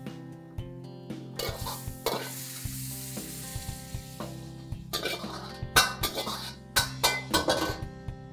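Hot iron wok sizzling as soup is ladled and poured from it into a bowl, then a metal ladle scraping and clinking against the wok several times in the second half.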